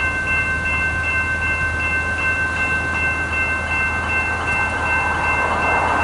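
Level crossing warning bells ringing continuously while the boom gates are down, signalling an approaching train. The noise of the train grows from about five seconds in.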